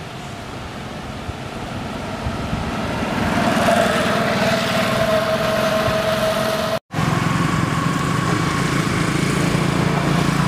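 A small engine running steadily, growing louder over the first few seconds. It cuts out for an instant a little before seven seconds in and comes back at a different, steady pitch.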